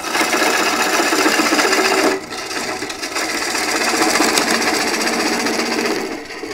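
Bowl gouge making a push cut across a wood bowl blank on a slowly turning lathe: a continuous rough cutting sound with a brief let-up about two seconds in, dying away near the end. The lathe is at its lowest speed, too slow for the gouge's pace, so the gouge is pushed forward faster than the wood comes around and cuts grooves into the surface.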